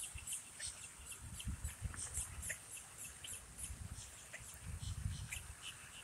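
Faint, short, high-pitched bird chirps, irregular and several a second, over a low rumbling noise.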